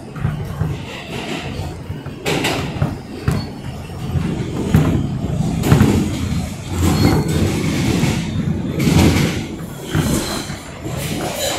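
New York City subway car running at speed through a tunnel, heard from inside the car: a steady rumble of wheels on rails broken by irregular clacks and bangs every second or so.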